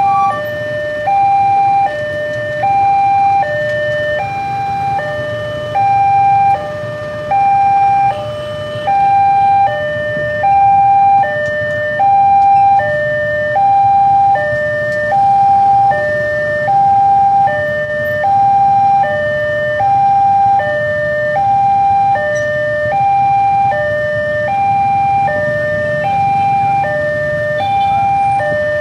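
Railway level crossing warning alarm sounding steadily, an electronic two-tone signal alternating evenly between a higher and a lower tone, while the crossing's red lights flash: the crossing is closed for an approaching train.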